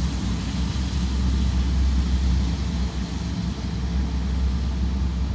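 Boeing 777's twin turbofan engines at taxi power as the airliner rolls past, a steady low rumble with a broad jet hiss.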